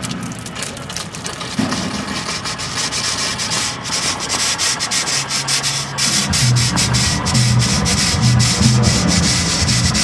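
1913 ALCO 0-4-0 steam locomotive venting steam with a continuous hiss that flutters rapidly. About six seconds in it grows louder and a low pulsing throb joins it.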